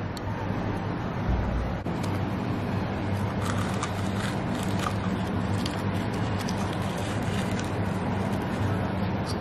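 A steady low hum and rushing noise, like a running fan or motor, with a short low thump about a second and a half in and faint clicks and crinkles of hands pressing nori and rice into a metal muffin tin.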